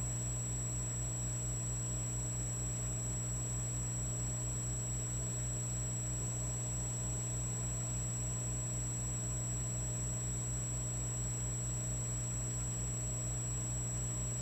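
Electric fireplace log set humming and buzzing steadily, with a thin high whine above and a low throb pulsing about four times a second.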